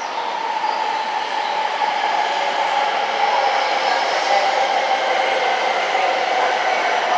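Coupled E5 and E6 series Shinkansen train pulling away after a station departure: steady rolling and motor hum of the cars passing, growing a little louder about three seconds in.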